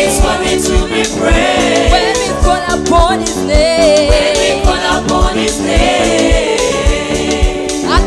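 Live gospel music: a woman sings lead, holding notes with vibrato, backed by women singers, electric bass and a drum kit keeping a steady beat.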